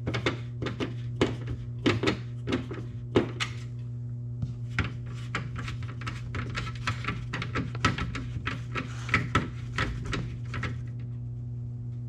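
A hand screwdriver driving screws into the plastic mounting tabs of an aftermarket grille: a long run of short, sharp clicks, often in quick clusters, over a steady low hum.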